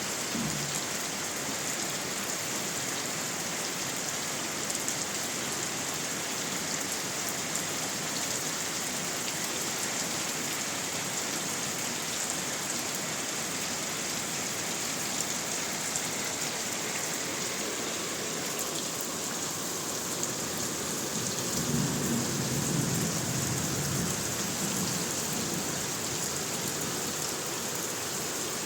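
Heavy rain falling steadily, an even hiss and patter of drops. A low rumble swells briefly about three-quarters of the way through.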